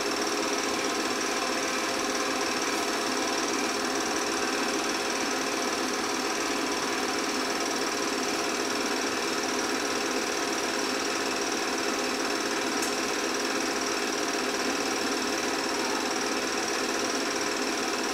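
8 mm film projector running, a steady rapid mechanical clatter that stays even throughout.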